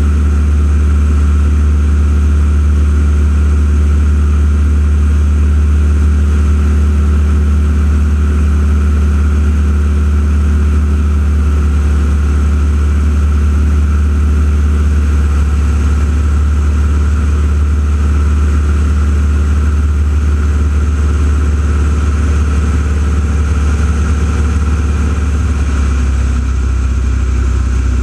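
An engine drone held at a steady pitch, loud and deep, with a slight change in tone near the end.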